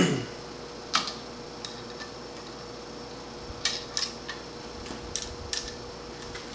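Steel engine parts knocking and clinking on a metal workbench as valve springs, retainers and the valve spring compressor are handled. A heavy knock with a short low ring comes at the start, one clink about a second in, then a quick run of light metallic clicks around the middle.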